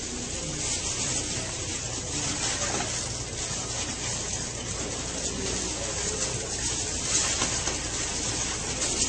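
Plastic wrap stretched over a door rustling and crinkling steadily as hands pull and tear at it.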